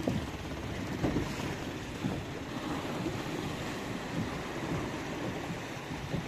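Small motorboat under way across choppy water: wind buffeting the microphone over the rush and splash of water along the hull.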